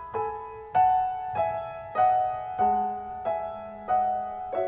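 Background piano music: slow single notes and chords struck about every half second to second, each ringing and fading.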